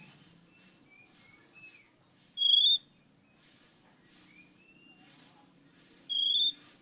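Oriental magpie-robin (kacer) singing: two loud, clear whistled notes about four seconds apart, each rising slightly, with softer short whistles in between.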